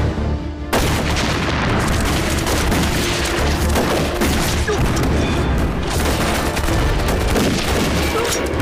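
Film battle sound effects: heavy, continuous rifle gunfire with booming shots, starting abruptly about a second in, over low background music.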